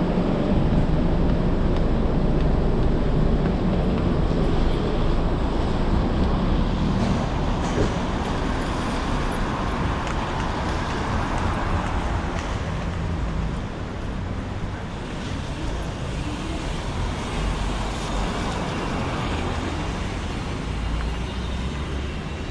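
Street traffic: a steady rumble of passing vehicles on a city road.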